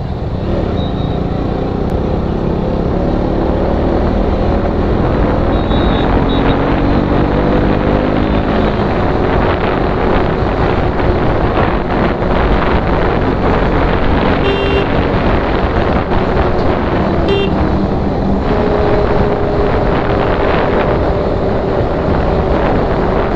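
KTM Duke 125's single-cylinder engine running under way, its pitch climbing in steps through the first several seconds and then holding steady. Two short horn beeps in the second half.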